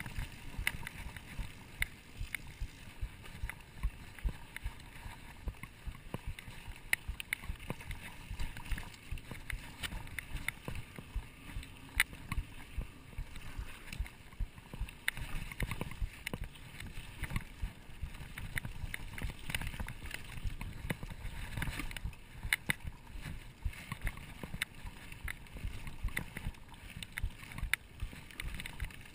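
Mountain bike rolling along a sandy singletrack trail: a continuous low rumble with frequent sharp clicks and knocks as the bike rattles over bumps.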